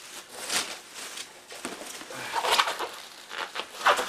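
Bubble wrap rustling and crinkling in bursts as the plastic sheet is pulled and unwound by hand, loudest near the end.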